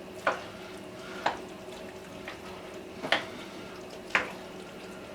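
A kitchen utensil knocking against cookware five times, about once a second, as shredded cooked chicken is added to a pot-pie filling and stirred, over a steady low hum.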